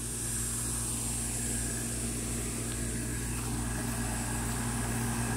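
A steady low machine hum, like a motor or engine running, with a constant high-pitched hiss above it.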